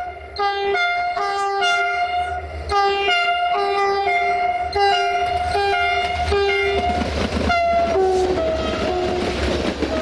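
GM diesel locomotive's two-tone horn played as a quick tune of short blasts, its pitch switching back and forth about twice a second. In the last few seconds the rumble and wheel clatter of the passing train build up under the last few notes.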